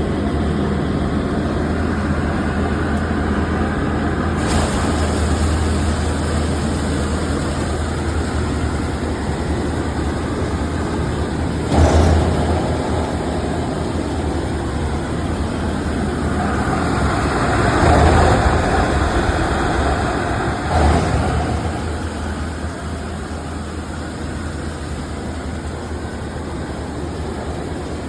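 Dry plastic cutting machine for LD film and raffia running with a steady loud hum, with brief louder surges of cutting noise about twelve seconds in and again twice past the middle.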